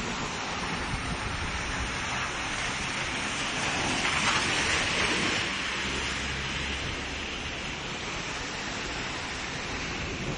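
Heavy rain pouring down: a steady hiss that swells for a second or two in the middle.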